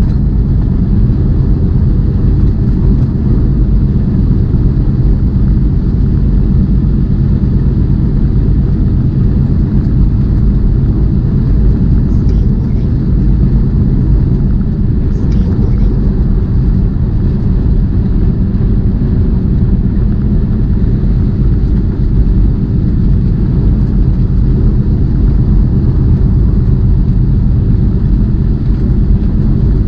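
Steady low rumble of a semi tractor-trailer cruising at highway speed, heard inside the cab: engine drone and road noise with no change throughout.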